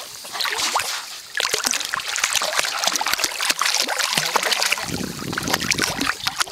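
A poodle swimming, its front paws paddling and slapping the water surface in quick, irregular splashes.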